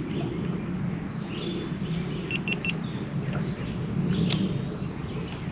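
Small birds chirping and calling in short phrases over a steady low rumble, with one sharp click about four seconds in.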